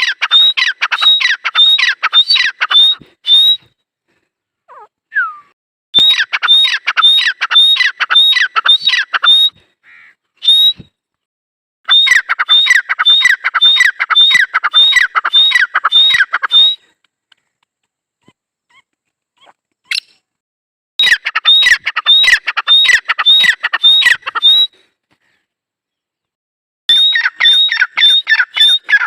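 Grey francolin (dakhni teetar) calling: loud bouts of quick, sharp repeated notes, about three a second, each bout lasting three to five seconds, with pauses of a few seconds between them, five bouts in all.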